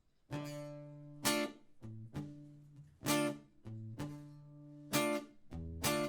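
Guitar begins a song intro about a third of a second in: strummed chords struck every second or two, with ringing low bass notes between the strokes.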